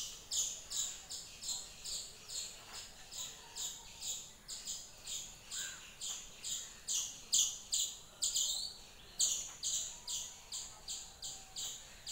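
A bird chirping over and over, a short high chirp repeated very regularly about two or three times a second.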